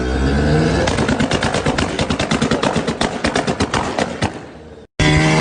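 Mazda RX-7 rotary engine blipped, then a rapid string of loud pops and bangs from the exhaust as it comes off the throttle, the typical overrun crackle of a rotary. The pops thin out and fade before a sudden cut near the end to the engine held steady at high revs.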